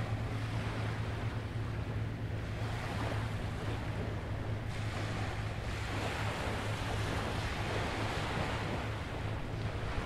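Ocean waves washing onto the beach, the surf swelling a couple of times, over a steady low hum.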